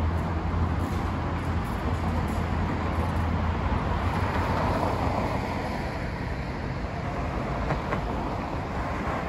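City street traffic: motor vehicles running on the road, with a steady low engine hum and a vehicle swelling past about four to five seconds in.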